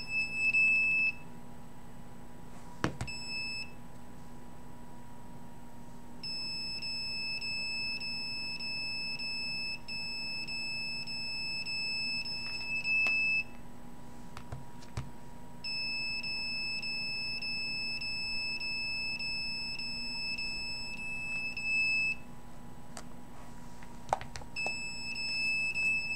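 High-pitched electronic beeping from a BlackBerry cell phone as it is activated. Short beeps come at first, then two long stretches of several seconds each, then short beeps again near the end. A faint steady hum runs underneath.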